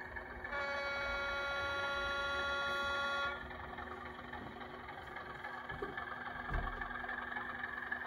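Horn of a sound-fitted 00 gauge model Class 37 diesel locomotive, one long steady blast lasting nearly three seconds and starting about half a second in. A low steady diesel engine sound runs beneath it and carries on after the horn stops.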